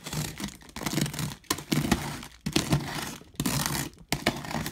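Box cutter blade slicing through plastic packing tape and cardboard along a box seam, with crackling tape. It comes in about half a dozen short strokes with brief gaps between them.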